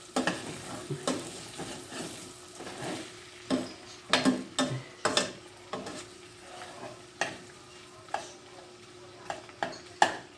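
Minced meat sizzling in a frying pan while a utensil stirs it, with irregular sharp scrapes and knocks of the utensil against the pan; the loudest knock comes near the end.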